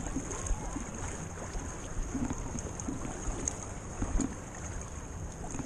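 Wind rumbling on a GoPro's microphone just above the water, with small waves lapping and sloshing around it and a faint steady high whine over the noise.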